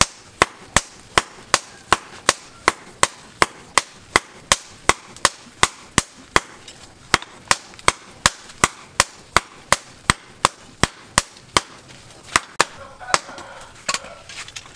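Hand hammer striking a red-hot steel bar on a small steel stake anvil, forging it in a steady rhythm of about three sharp, ringing blows a second. The blows thin out and stop in the last couple of seconds.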